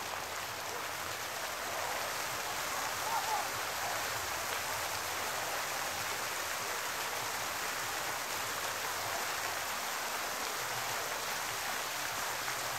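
Pond fountain jet splashing back onto the water, a steady rushing hiss of falling spray.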